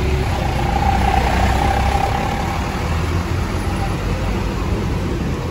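Large tour bus's diesel engine running close by with a steady low rumble, over street noise and a few voices.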